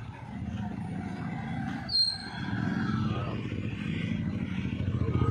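Motorcycle engine running with a low, rapid throb that grows louder toward the end as it comes up from behind. A brief high-pitched squeal about two seconds in.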